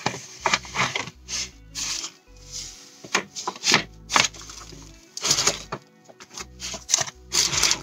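Paper packaging crinkling and rustling in irregular loud bursts as a boxed cosmetic is slid out of its paper sleeve, over background music with a low bass line that steps from note to note.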